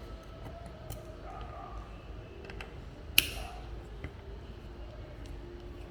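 Small clicks of hardware being handled, with one sharp metallic clink that rings briefly about three seconds in.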